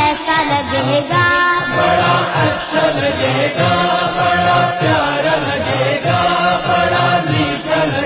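Boys' voices singing an Urdu naat together as a chorus, over a steady low beat that repeats about twice a second.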